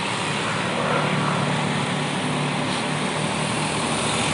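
Bus engine running with a steady drone.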